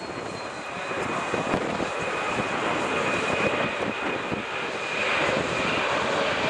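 Boeing 767-300ER's twin jet engines at takeoff thrust during the takeoff roll: a broad, steady rumble with a thin high whine, growing louder as the airliner accelerates down the runway.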